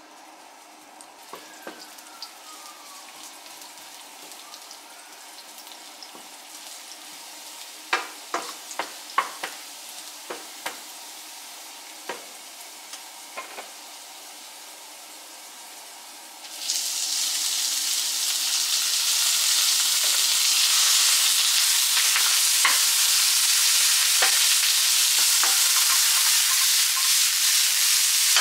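Sliced garlic sizzling softly in oil in a nonstick frying pan, with a few sharp taps. About halfway through, raw beef mince goes into the hot pan and a loud, steady sizzle starts suddenly, stirred with a wooden spatula.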